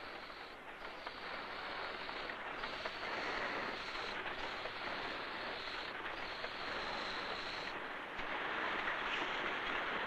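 Steady noise of automatic assembly machines in a radio factory, with no distinct strokes. It gets a little louder about eight seconds in.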